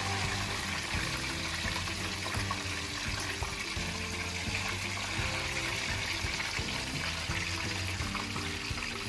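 Dredged chicken pieces sizzling steadily in hot oil in a frying pan, with background music playing over it.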